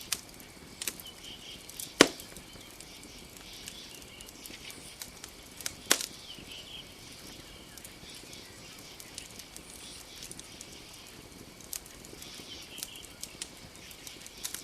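Campfire crackling with scattered sharp pops, the loudest about two seconds in and another about six seconds in, over a steady hiss of night forest ambience with a few faint chirps.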